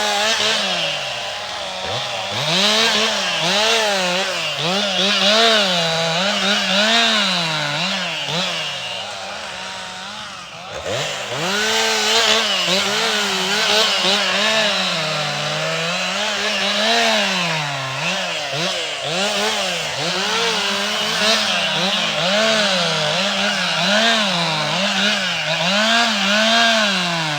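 Stihl chainsaw running as it cuts firewood, its engine pitch rising and falling over and over as it revs and loads in the wood. The engine drops off briefly about ten seconds in.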